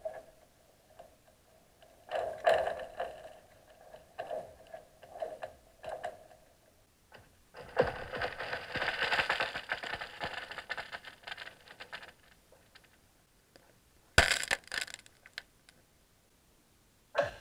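Newly forming first ice cracking, heard from under the water: scattered small crackles at first, then a dense run of crackling about eight seconds in that lasts about four seconds. About fourteen seconds in comes one single sharp crack.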